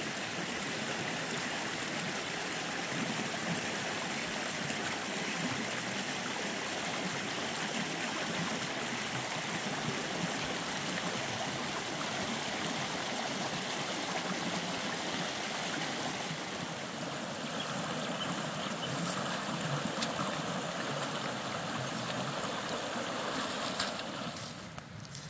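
Shallow rocky creek running: a steady rush of water over stones.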